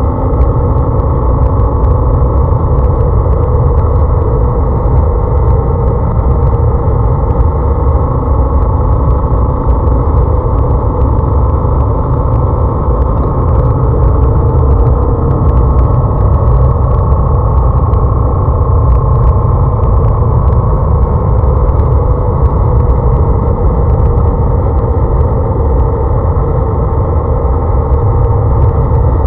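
Motorcycle being ridden at a steady pace, heard from a camera on the bike: the engine running under a heavy, continuous rumble of wind on the microphone.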